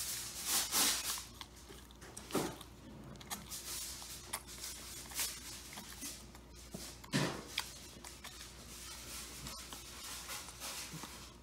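A person eating a Big Mac close to the microphone: chewing and mouth noises with a few short, louder crunching or rustling noises, the biggest about a second in, near two and a half seconds and about seven seconds in.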